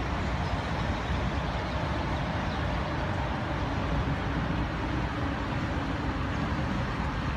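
Steady low rumble of road traffic, with a faint engine hum.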